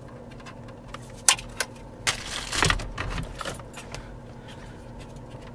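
Small clicks and a rustling rattle of cables and plastic as the FM antenna connectors are pressed at their release tabs and pulled off the back of the car's original radio unit. There is one sharp click about a second in and a longer scraping rustle around two seconds in.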